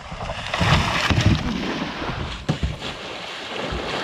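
River water rushing and churning, with wind buffeting the microphone; the loudest surge comes between about half a second and a second and a half in.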